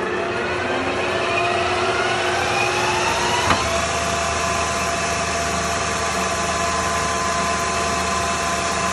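Kingston HL2500 engine lathe's geared headstock running with the chuck spinning: a whine that rises in pitch for about three and a half seconds as the spindle comes up to speed, then a single click, after which the whine holds steady.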